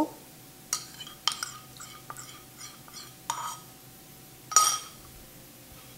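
Kitchenware clinking against a bowl as melted butter is put into it: a string of light clinks with a short ring, the loudest about four and a half seconds in.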